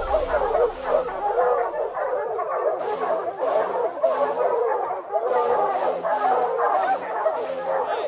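A pack of bear hounds treeing: many dogs baying and barking at once at the foot of the tree where the bear is treed. The calls overlap without a break, and sharp barks come about twice a second from about three seconds in.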